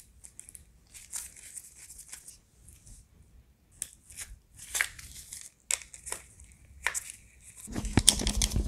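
Disposable gloves rustling and light plastic-and-metal clicks as an airsoft rifle's handguard is turned over in the hands, in scattered faint ticks. Near the end, a louder, denser crackle of close handling noise begins.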